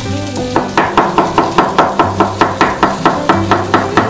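Chef's knife slicing a red onion thinly on a wooden chopping board: quick, even knocks of the blade on the board, about five a second, starting about half a second in.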